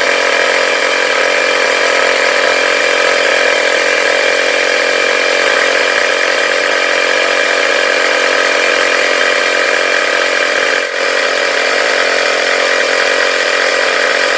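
Portable 12-volt air compressor built into a Stanley FatMax jump starter, running steadily as it pumps up an underinflated car tire through a hose screwed onto the valve. There is a brief dip in its sound about eleven seconds in.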